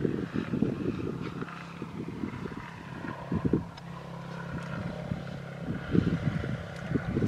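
Wind rumbling on the microphone in irregular gusts. Through the middle a steady low drone of a distant motor is heard.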